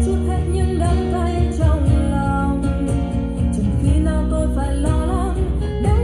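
A Vietnamese-language song with a sung melody, guitar and strong bass, played through an LG XBOOM GO PL7 Bluetooth speaker.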